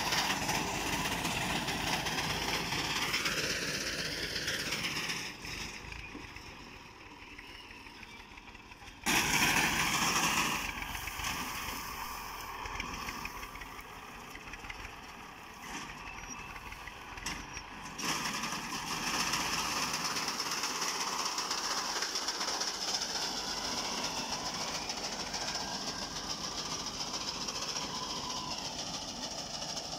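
Massey Ferguson 240 tractor's three-cylinder diesel running under load as it drives a front-mounted reaper through standing wheat, with a steady mechanical clatter. The level drops for a few seconds and jumps back up about nine seconds in.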